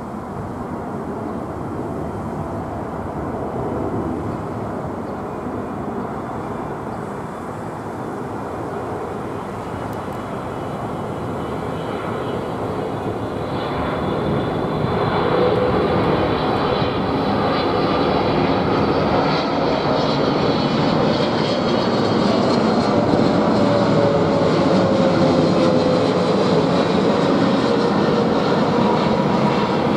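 Boeing 777 airliner with GE90 turbofan engines passing low overhead on approach to land: a steady jet engine rumble that grows louder about halfway through, joined by a whine that slowly falls in pitch as the jet moves away.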